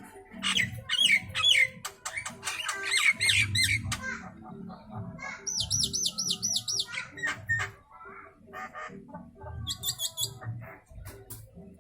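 Asian pied starling (jalak suren) calling and singing: a run of harsh squawking notes, a fast warbling trill about halfway through, then scattered short high whistles near the end.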